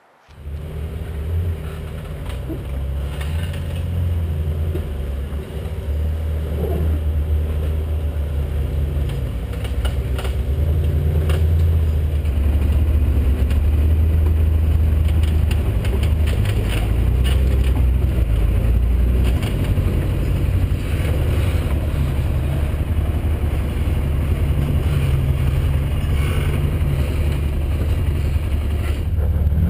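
ATV (four-wheeler) engine running at low speed, heard on board, its low drone stepping up and down with the throttle, with scattered clicks and knocks over rough rock.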